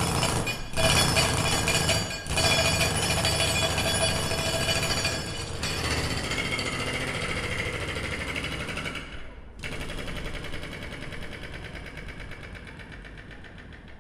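Sharp metal strikes about one and two seconds in, then a dense, rattling metal clatter that falls away about nine and a half seconds in: work knocking frozen dirt out of a John Deere 120 excavator's quick coupler.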